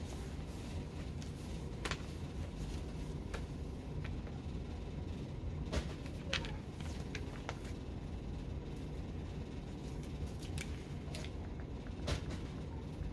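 Magazine pages being handled and turned: a few short, scattered paper rustles and soft clicks over a steady low room hum.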